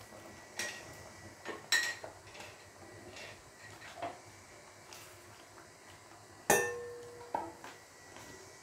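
Clinks and knocks on a stainless steel cooking pot as chopped eggplant is tipped in from a metal bowl and stirred with a spatula. The loudest knock comes about six and a half seconds in and rings briefly.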